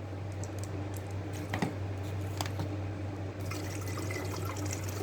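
Water being poured into an electric kettle: a steady pour, with a couple of light clicks about one and a half and two and a half seconds in.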